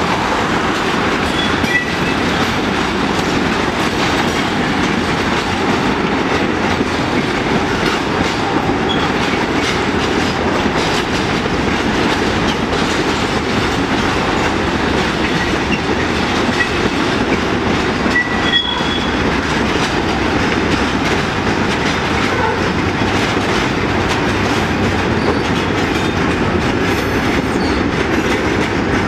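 Freight train of tank wagons rolling past, its wheels making a steady rumble and clickety-clack on the rails. Brief high wheel squeals come twice, about two seconds in and again around the middle.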